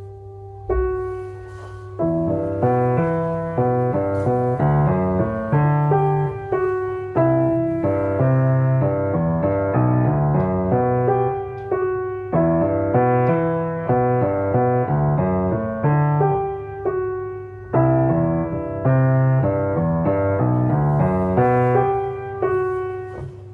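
Solo piano music, a steady flow of struck notes in a moderate rhythm.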